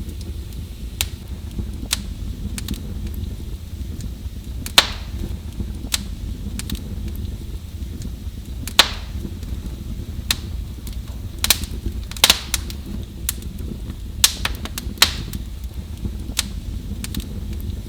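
Wood fire in a fireplace crackling, with irregular sharp pops, a few louder ones every few seconds, over a steady low rumble of the burning.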